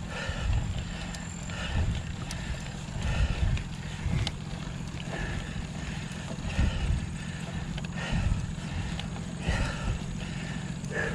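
A cyclist breathing hard on a steep 13% climb, with a heavy exhale about every second and a half over a steady rumble of wind on the camera microphone.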